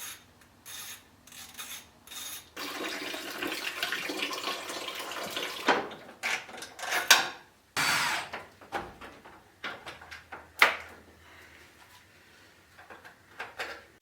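Engine coolant pouring out of the radiator, a rushing of liquid that lasts about three seconds, among sharp clicks, clanks and scrapes of parts and tools being handled.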